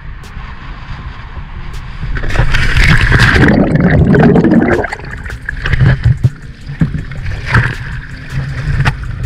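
A diver enters the sea from a dive boat: after a low steady rumble, a loud splash about two seconds in, then a rush of bubbles around the camera as it goes under. Water sloshes and drips once he is back at the surface.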